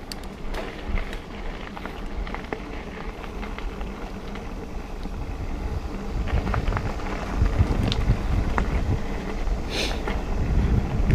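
Mountain bike (Santa Cruz Tallboy) rolling over a dirt trail: tyre rumble and wind on the microphone, with light rattles and clicks from the bike. It gets louder about six seconds in.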